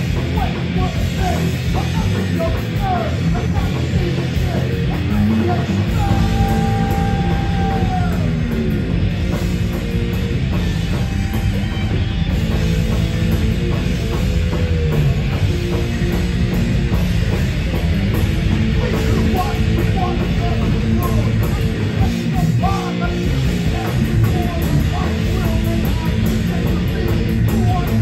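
Crossover thrash band playing live and loud: distorted electric guitar, bass guitar and fast drums, with a held note bending downward about six seconds in.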